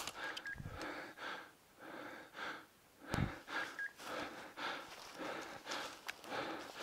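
A person walking through dry fallen leaves, breathing hard, with a rustle at each step. A faint short high beep repeats about every three seconds.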